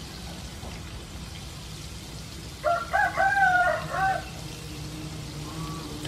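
A rooster crows once, a broken multi-note crow of about a second and a half starting near the middle. Under it, the steady sizzle of battered squid deep-frying in a wok of hot oil.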